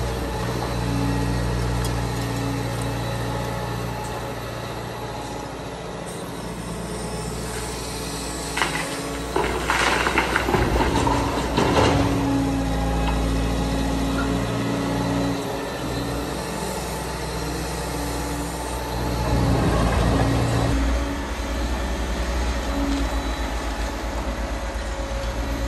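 Liebherr R940 Demolition excavator's diesel engine running steadily. About a third of the way in there are a few seconds of clattering and scraping from the truck-loading work, the loudest part. About three-quarters through, the engine briefly rises in level and drops back.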